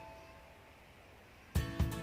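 Background music: a held note fades away, then after a short near-quiet gap the music comes back in with a beat about one and a half seconds in.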